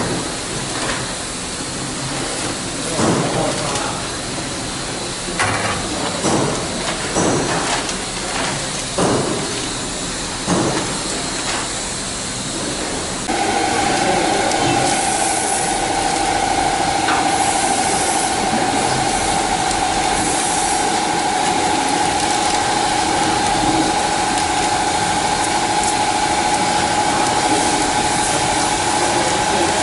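Packaging machine: irregular knocks and clacks over a steady hiss, then about 13 seconds in the machine switches on abruptly and runs with a steady whine.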